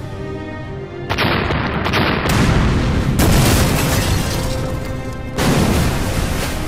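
Explosion sound effects over background music: a series of booms and rumbling blasts, the first about a second in and the last about five and a half seconds in.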